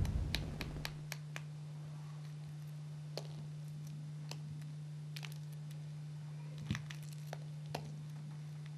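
Small crackles and clicks of an eggshell being picked off by fingers, coming singly and spread apart, over a steady low hum.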